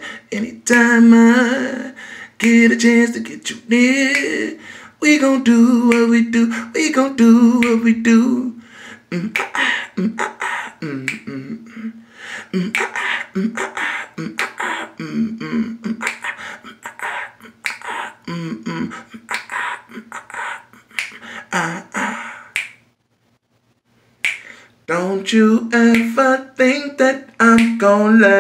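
A person singing unaccompanied, with finger snaps keeping the beat. Through the middle the voice comes in shorter clipped bits among the snaps, and near the end everything drops out for about two seconds before the singing and snapping return.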